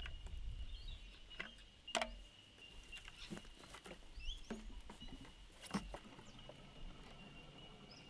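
Quiet outdoor ambience: a steady high-pitched tone throughout, a few short chirps, and scattered faint clicks and crackles.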